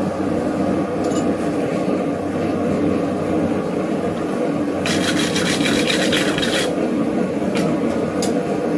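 A burst of rapid scraping strokes on the forged steel hook, lasting about two seconds past the middle, over a steady background noise.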